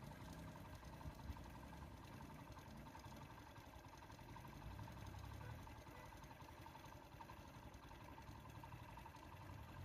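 Faint, steady idling of a stopped Ashok Leyland bus's diesel engine, a low rumble with a steady hum running under it.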